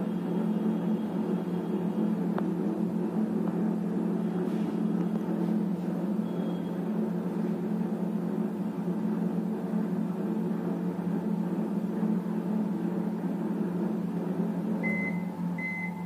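IFB 30SC2 convection microwave oven running with a steady hum as its timer counts down. Near the end it beeps twice: the end-of-cycle signal that cooking is finished.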